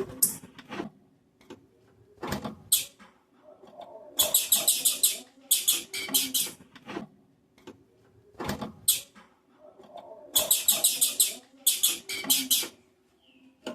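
Female blue-black grassquit (tiziu) singing in the male-like way keepers call 'macheando'. It gives a few single high chirps, then two pairs of rapid, high trilled bursts about a second each, near the middle and near the end. Faint low knocks and rustling sound underneath.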